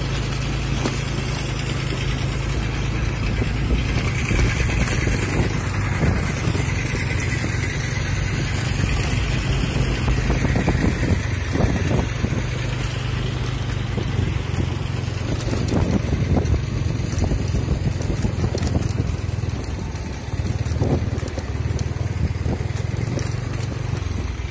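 Small motorcycle engine running, ridden along a bumpy dirt track, under a steady low hum.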